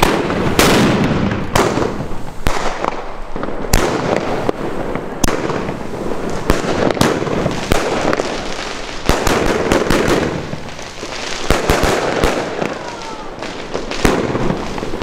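Fabric Fireworks 'Maximum Force' firework cake firing shot after shot. Sharp reports come roughly once a second over a continuous noisy rush of launches and bursting stars.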